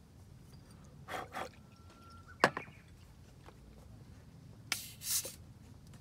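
A drink being poured into a ceramic mug on a wooden table: short splashy hisses, then a sharp knock about two and a half seconds in as the loudest sound, and another short hiss near the end.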